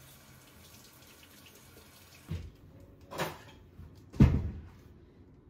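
Three dull knocks about a second apart, the last one the loudest, as things are set down on a kitchen counter.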